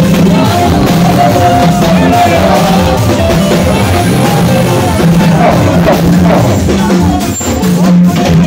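Loud live worship music through a sound system: singers on handheld microphones over drums and held low instrumental notes.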